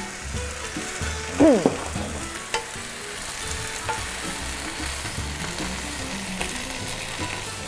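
Lettuce leaves sizzling in sesame oil in a non-stick frying pan, stirred and pushed around with a wooden spatula, with a few light taps of the spatula on the pan. A short falling pitched sound comes about a second and a half in.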